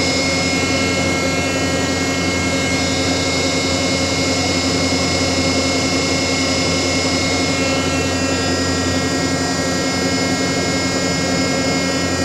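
Ship's deck crane machinery running steadily: a constant hum with several fixed, unchanging tones.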